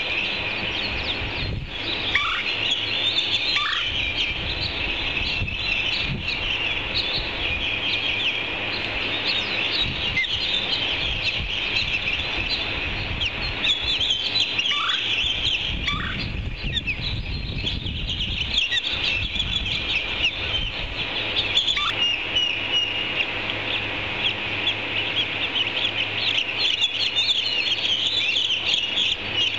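Ospreys at the nest calling during a feeding: a dense, unbroken run of rapid high-pitched chirps, with a few lower falling notes now and then. A low rumble runs underneath.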